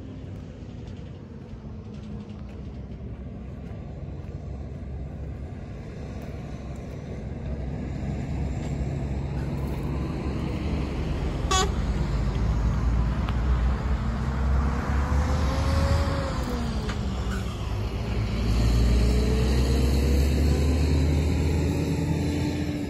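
A motor vehicle's engine running and drawing closer, growing louder over the first half, its pitch rising and falling as it revs.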